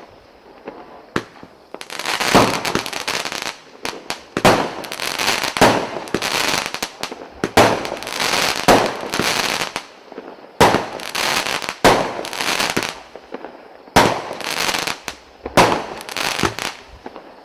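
A 25-shot 0.8-inch firework cake firing its shots one after another, about one a second, each a sharp report followed by a noisy burst, with a short pause near the middle of the run.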